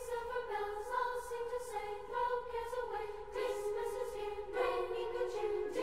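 A choir singing slow, held chords, unaccompanied or nearly so, with the chord changing every second or so.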